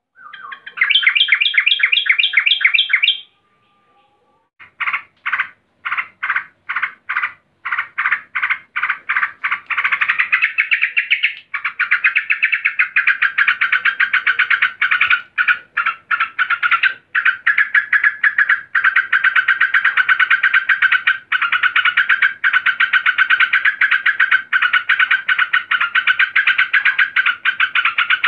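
Yellow-vented bulbul calling agitatedly, which the title presents as a female calling a male. A quick run of rapid notes lasts about three seconds and stops briefly. Then come sharp repeated notes, about three a second, that speed up into a continuous rapid chatter from about ten seconds in.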